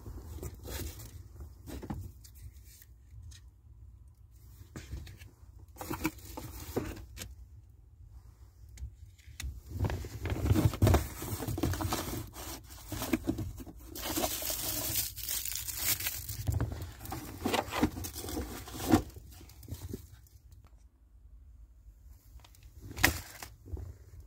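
Rustling and crinkling of a large glossy picture sheet being handled and pressed against a truck topper window, in irregular bursts with a longer, harsher rustle midway and a couple of sharp knocks near the end.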